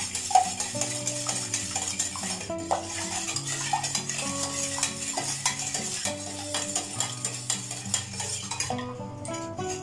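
Metal spoon stirring Tang drink mix into sugar syrup in a stainless steel pot, clinking repeatedly against the pot's sides, over background music. The clinking thins out near the end.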